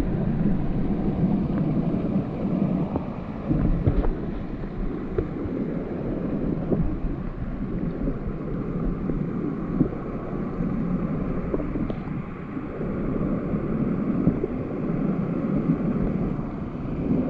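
Steady rush of river water with wind buffeting the microphone in uneven low rumbles, and a few faint knocks.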